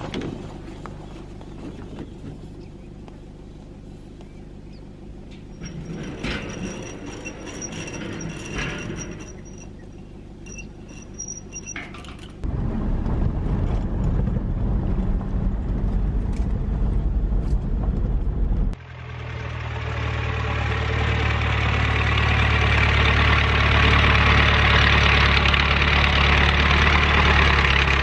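A heavy diesel machine engine running, with high metallic squeaks in the middle. The sound changes abruptly about twelve seconds in, becomes a louder, heavier rumble, cuts off briefly, and then returns as a loud, noisy rumble.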